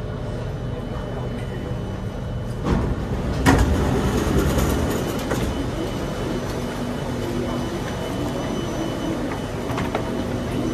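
MRT train doors and platform screen doors sliding open, with a sharp knock about three and a half seconds in, over the steady hum of the train standing at the platform. Passengers' footsteps and bustle follow as people get off and on.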